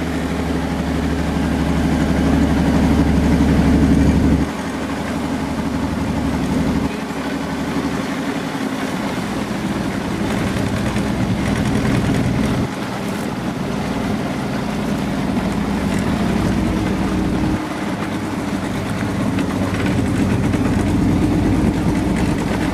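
A motor engine running steadily, a low drone with a constant hiss over it. The level changes abruptly a few times, like cuts between takes.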